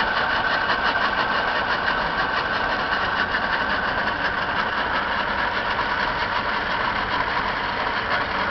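Twin Johnson 150 two-stroke V6 outboard motors idling steadily and running smoothly.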